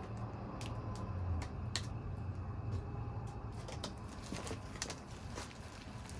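Irregular light clicks and taps from tools and the metal and plastic parts of an LCD monitor's backlight housing as it is worked apart, over a low hum that is stronger in the first half.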